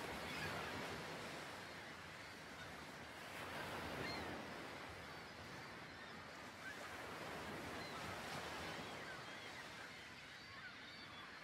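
Faint seaside ambience: a steady wash of surf with short bird calls scattered through it.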